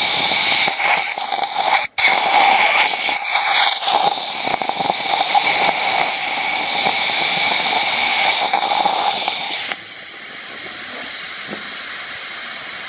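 A loud, steady hiss that cuts in and out abruptly, with a brief dropout about two seconds in and a drop in level near the end.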